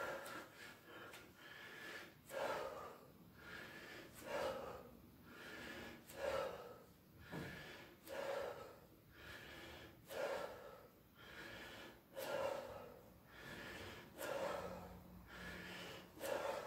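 A man's heavy breathing, exhaling in a steady rhythm about every two seconds in time with repeated side-lying leg lifts.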